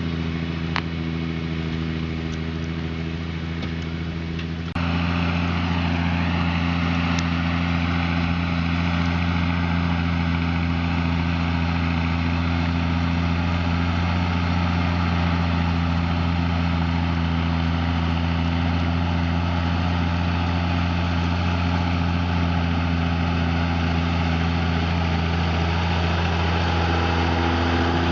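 Diesel engine of farm machinery running at a steady speed with a constant low hum. About five seconds in the sound changes abruptly and becomes louder.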